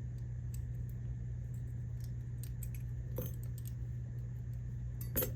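Scattered small metallic clicks and taps of padlock parts, the key, pins and tweezers, being handled during repinning, the loudest a quick pair of clicks near the end, over a steady low hum.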